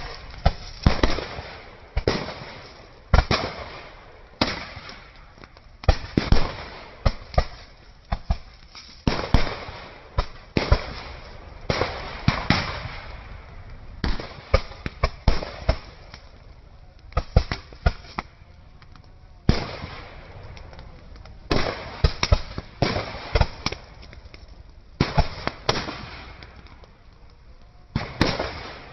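Firecrackers going off in irregular volleys: sharp bangs, often several in quick succession, with short lulls between the clusters.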